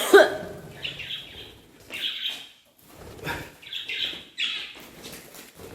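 Pet budgerigars chirping in short, repeated bursts. A brief human vocal sound comes right at the start.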